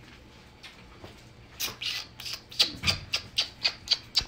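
Corgi puppy giving a quick run of shrill, high-pitched yips, about four a second, starting about a second and a half in.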